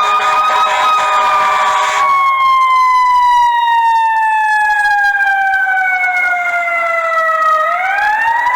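Fire truck siren wailing: one long, slow fall in pitch, then rising again near the end. A noisy layer under it drops away about two seconds in.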